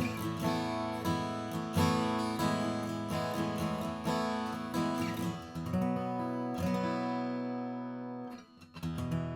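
Steel-string acoustic guitar, a Furch-built Stanford D5 Pro, being strummed and picked, with chords struck about once a second and left ringing. The playing stops for a moment near the end, then starts again.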